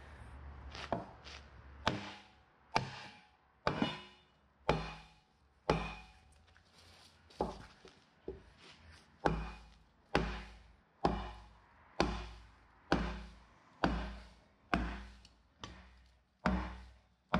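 Sledgehammer blows on a wooden block held against the steel end ring of a street-sweeper barrel broom, about one hard wooden thunk a second, knocking the end plate loose from the broom core.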